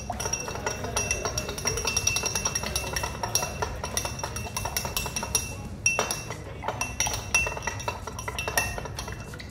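Long metal bar spoon stirring lime juice, sugar and salt in a tall glass tumbler: a steady run of rapid clinks against the glass, with the glass ringing, and a few louder knocks in the second half.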